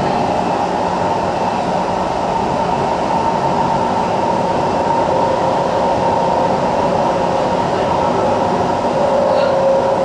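Kawasaki C151 metro train with Toshiba PMSM traction motors running between stations, heard on board: a steady rolling rumble with a steady whining hum over it. The lower part of the whine grows stronger near the end.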